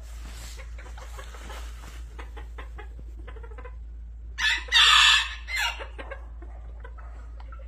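Japanese bantam rooster crowing once about four and a half seconds in: a high crow in three parts, the middle one longest and loudest. Hens cluck softly around it.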